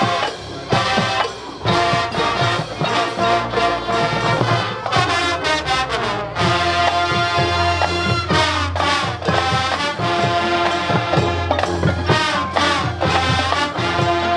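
High school marching band playing a Motown arrangement: sustained pitched band notes over a steady run of drum strokes.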